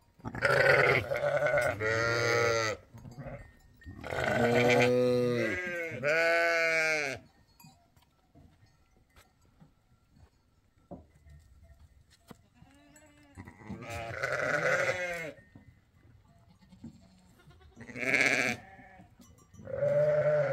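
Goats bleating: several long, wavering bleats close together in the first seven seconds, a lull, then a few more near the end.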